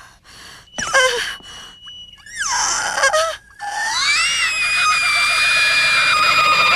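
A woman's voice in a cartoon soundtrack: after a few short sounds, about four seconds in it rises into one long, high-pitched shriek that is held to the end.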